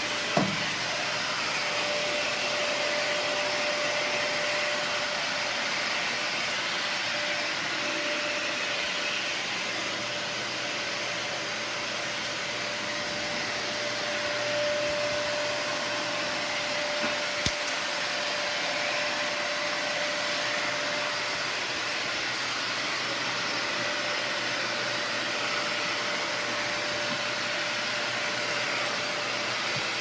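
Dyson Ball Animal 2 upright vacuum cleaner running steadily, pulling air through its hose and wand with a narrow nozzle attachment over a wooden floor. A faint steady whistle rides on the motor noise for much of the time, and there is one sharp click a little past halfway.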